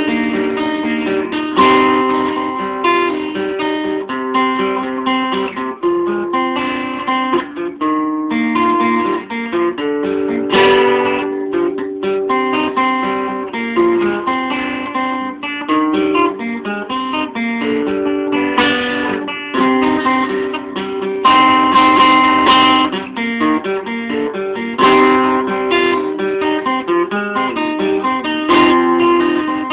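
Acoustic guitar with a capo on the neck being played, with chords plucked and strummed in a steady flow of changing notes.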